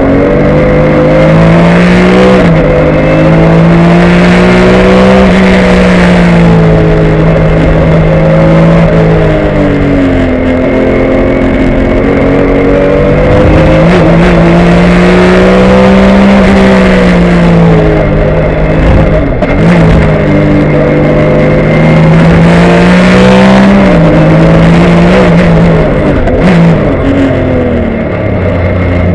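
A Porsche 996 Cup race car's flat-six engine running hard, heard loud from inside the cockpit. Its pitch climbs and falls several times as the car accelerates and slows through the corners.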